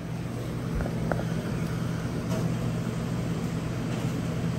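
A steady low mechanical hum, with a faint tick about a second in.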